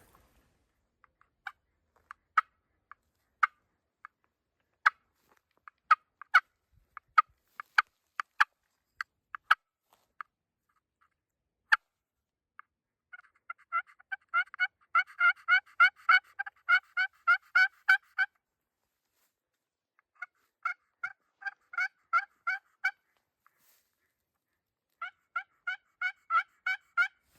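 Turkey call used by a hunter, imitating hen turkey calls to draw a gobbler: scattered single clucks, then three fast runs of yelps, about six notes a second.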